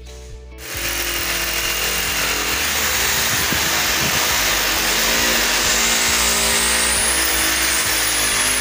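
A corded electric power tool runs steadily at full speed, starting about a second in and running without a break to the end. The sound is loud and hissing, with no clear pitch.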